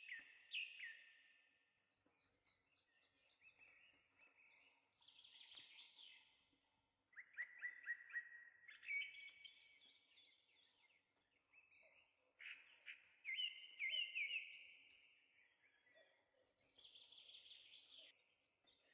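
Faint birdsong: bursts of chirps, trills and falling whistled notes, coming in phrases every few seconds.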